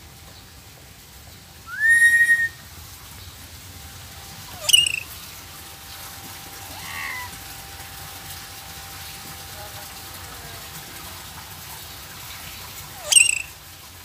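Pet lory whistling and calling: one loud rising whistle about two seconds in, then short sharp calls that drop quickly in pitch, one around five seconds in and one near the end, with a fainter call between.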